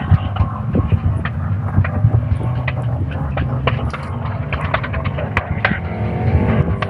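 Motor vehicle engine running with a steady low rumble, with many short clicks and knocks over it.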